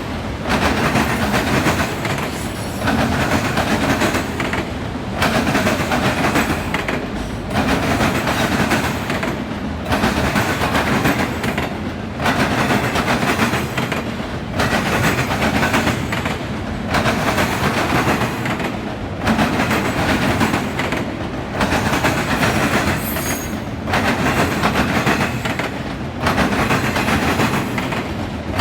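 Autorack freight train cars rolling past, wheels clattering on the rails, the sound surging and easing in a regular rhythm about every two seconds.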